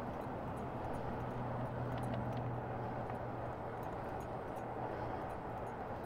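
Steady wind and road noise from riding an e-bike, with a low steady hum that fades about five seconds in.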